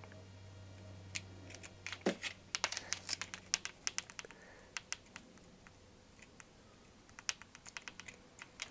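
Quick, irregular clicks and crackles of iron-on plastic covering film being handled and trimmed at the corner of a covered tail surface, in flurries about two seconds in and again near the end.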